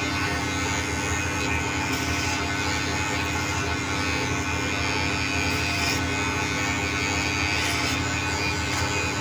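Electric hair clipper fitted with a comb guard, running with a steady buzz as it cuts a man's hair.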